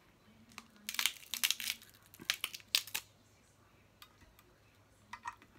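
Snow crab leg shells cracking and crunching: a quick run of sharp cracks about a second in, lasting a couple of seconds, then a few more cracks near the end.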